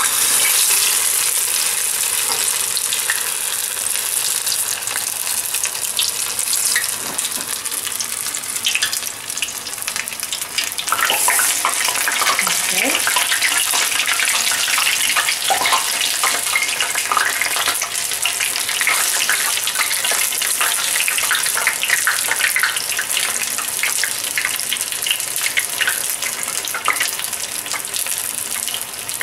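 Battered borage leaves deep-frying in hot sunflower oil in a steel pot: dense, steady sizzling and crackling. The sizzle swells again about eleven seconds in as a second battered piece goes into the oil.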